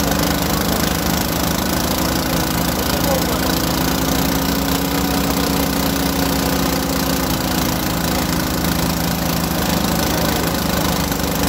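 Engine of a small water-well drilling rig running steadily at a constant speed, with an even low hum.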